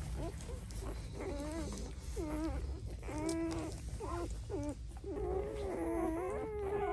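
Newborn Doberman puppies squeaking and mewling as they jostle to nurse: a quick string of short, wavering cries, then a longer drawn-out whine near the end, over a low steady rumble.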